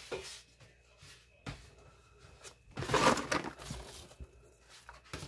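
Chopped onion pieces being dropped by hand into a slow cooker crock onto diced potatoes: a few light knocks, then a loud rustling clatter about three seconds in that quickly fades.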